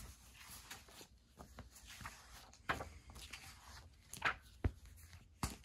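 Faint rustling and light handling of a comic book, with a few short soft knocks.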